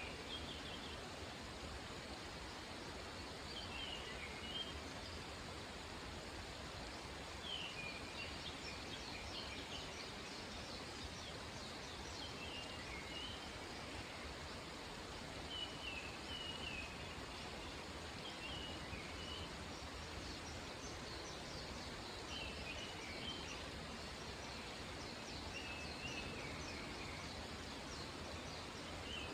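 A small bird sings a short chirping phrase about every three seconds, some nine times, with fainter high twittering in between, over a soft, steady rush of outdoor background noise.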